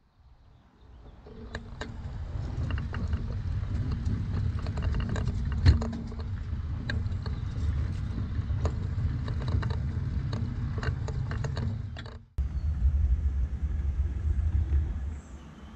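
A 7¼-inch gauge miniature locomotive running on the track: a low rumble that builds over the first couple of seconds, with scattered clicks and knocks from the wheels on the rails. After a sudden break the rumble resumes as the loco sits on the turntable, and it drops away near the end.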